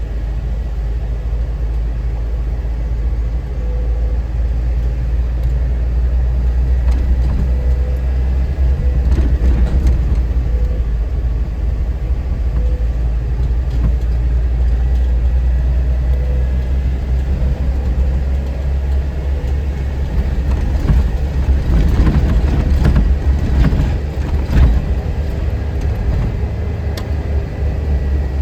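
Off-road vehicle driving down a gravel mountain trail: steady low engine and road rumble, with scattered knocks and rattles from the rough surface that bunch up in the second half.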